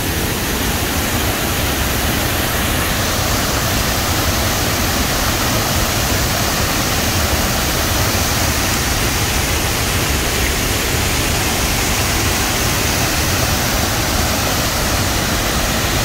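Wide, low waterfall in heavy flow, water pouring over a rock ledge: a loud, steady rush of falling water.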